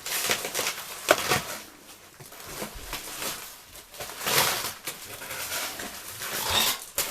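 A large cardboard box and its packing being pulled and worked open by hand: bursts of rustling and scraping, with a sharp knock about a second in.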